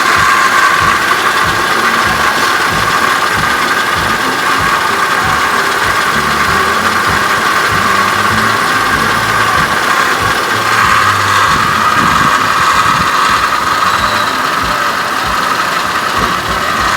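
2004 Cadillac CTS 3.6-litre V6 running, with a nasty, steady whine over the engine sound.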